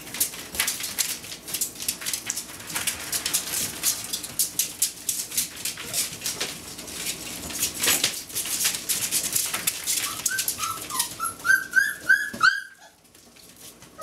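Four-week-old Doberman puppies' claws clicking and pattering rapidly on a hard vinyl floor as they scamper. Near the end a puppy gives a string of short, high whimpers rising in pitch, then the sound cuts off suddenly.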